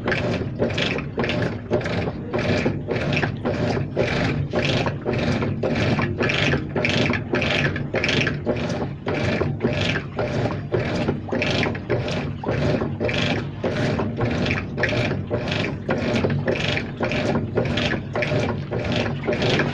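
Washing machine running with water in the drum: a regular swishing, about two strokes a second, steady throughout.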